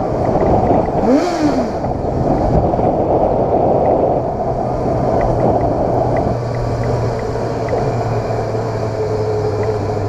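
Yamaha XJ6 motorcycle's inline-four engine running at low street speed, its pitch briefly rising and falling about a second in, with tyre noise from the paving blocks.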